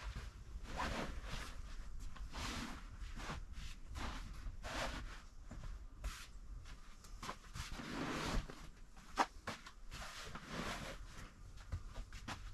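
Irregular soft rustles and swishes about once a second, with a few short sharp clicks near the end, over a low steady rumble.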